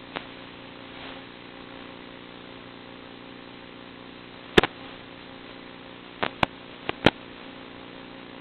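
Steady buzzing hum and hiss from an FPV plane's onboard audio feed, broken by sharp clicks: one near the start, a louder double click about four and a half seconds in, and four more between six and seven seconds.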